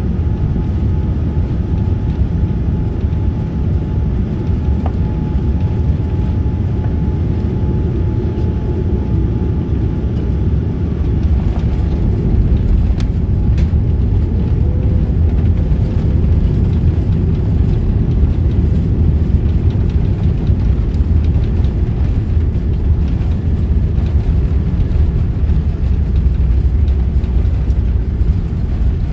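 Boeing 787-9 cabin noise during landing, heard from inside the cabin: a steady engine and airflow rumble with a thin whine. About twelve seconds in, a few knocks mark the touchdown, and the rumble grows louder and rougher as the wheels roll down the runway.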